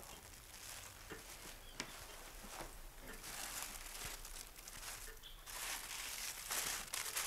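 Soft rustling and crinkling of tissue paper around folded clothes being handled in a drawer, growing louder about halfway through.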